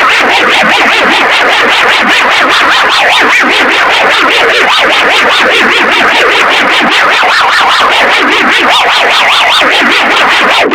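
Loud, harsh, distorted electronic alarm of a mock emergency alert, pulsing rapidly and evenly.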